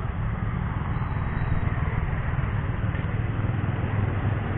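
Steady low rumble of road traffic: motorcycle engines running some way off as they ride round the hairpin bend.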